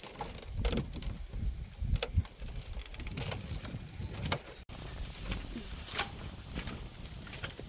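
Irregular footsteps knocking on a bamboo walkway, about one or two a second, with wind rumbling on the microphone.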